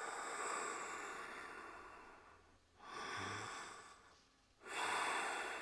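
Heavy human breathing: three long, noisy breaths, each starting suddenly and fading away, the first the longest.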